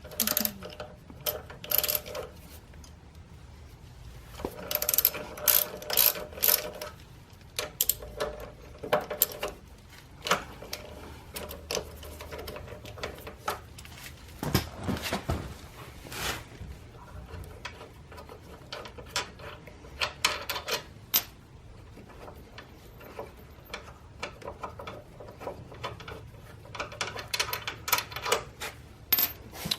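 Ratchet wrench clicking in runs as the two 12 mm brake caliper bolts are worked loose, with scattered knocks of metal tools between the runs.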